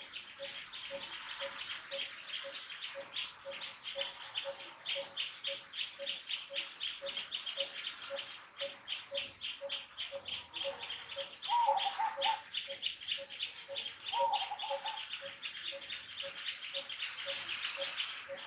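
Birds and insects calling: a rapid run of high chirps, about three or four a second, over a low note repeated evenly about twice a second. A short wavering call comes twice, about two-thirds of the way through.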